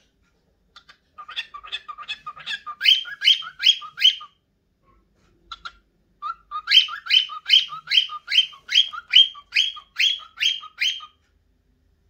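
Cockatiel singing: two phrases of quick, evenly repeated whistled notes, about three a second, the second phrase longer and louder. It is the mating song of a hormonal adult cockatiel.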